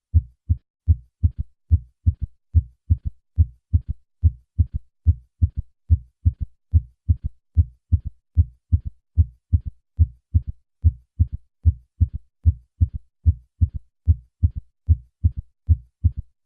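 Recorded heart sounds heard through a stethoscope bell: a steady run of short, low-pitched thuds, about three a second. These are the first and second heart sounds with a low, early-diastolic third heart sound after each second sound.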